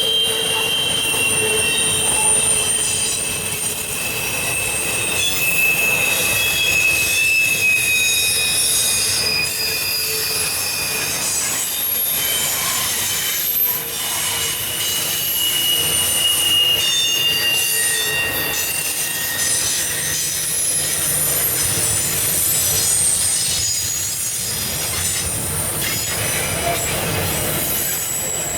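Freight train's intermodal cars rolling past, with steel wheels squealing in long high-pitched tones over a steady rumble and clickety-clack of wheels on rail joints.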